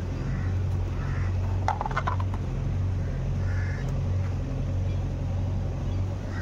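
A plastic toy car clatters with a short run of knocks as it tumbles off a cardboard ramp into a dirt hole, about two seconds in. Underneath runs a steady low hum that swells and fades in a slow pulse.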